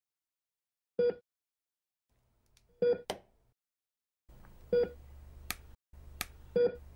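Hospital patient monitor beeping steadily, four short pitched beeps about two seconds apart. From about three seconds in, sharp clicks fall between the beeps, and a low hum starts about four seconds in.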